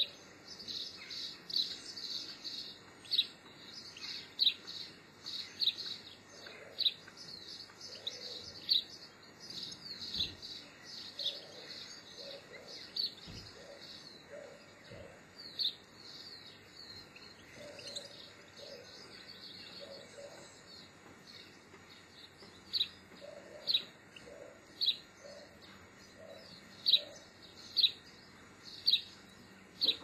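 Small songbirds calling: a busy run of short high chirps, thinning out, then single sharp chirps about once a second near the end.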